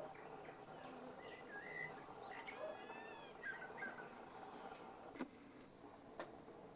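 Eurasian blackbird singing faintly: a few fluted, gliding notes, then a quick high twitter, then a couple more notes. Two sharp clicks about a second apart follow near the end.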